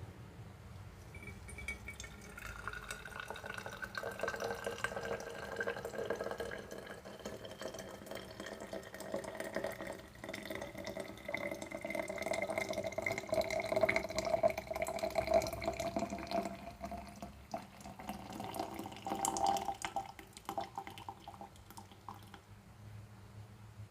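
Water pouring steadily into a vessel for about twenty seconds. The ringing tone of the vessel slowly rises in pitch as it fills, then the pour stops near the end.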